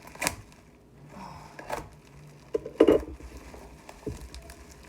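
Packing material, bubble wrap and plastic wrap, being pulled and handled around a boxed ceramic cookie jar during unwrapping. It comes as a few separate rustles and knocks, the loudest a little before three seconds in.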